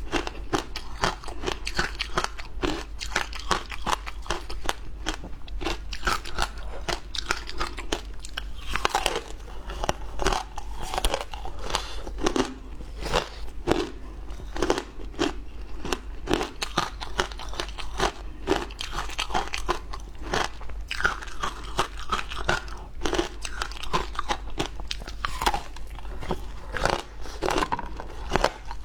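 Frozen flavoured ice bitten and crunched between the teeth: a rapid run of crisp cracks and crunches, several a second, with chewing in between.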